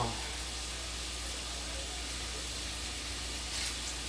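Vegetables sautéing in a pot, giving a steady sizzling hiss.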